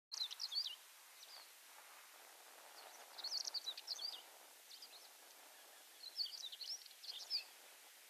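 Tawny pipit singing: short bursts of quick, high chirping notes repeated every few seconds over a steady background hiss.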